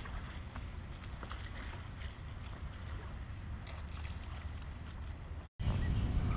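Steady low rumble of wind buffeting the microphone, with faint scattered ticks. It drops out for a moment about five and a half seconds in and comes back louder.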